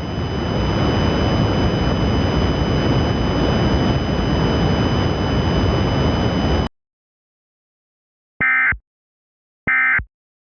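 Loud, even static-like noise with faint steady high tones that cuts off abruptly about seven seconds in. After a moment of silence come two short, raspy electronic data chirps a little over a second apart: the EAS SAME end-of-message (NNNN) bursts that close the alert.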